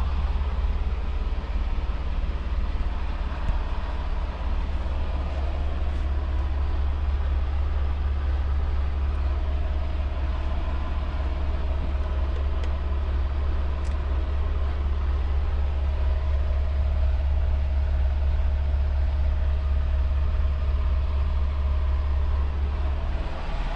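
Diesel engine of a 2022 Freightliner Cascadia semi-truck idling steadily, a deep even drone heard from inside the sleeper cab.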